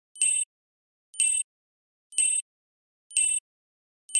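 Quiz countdown timer sound effect: a short, high-pitched tone repeating once a second, five times.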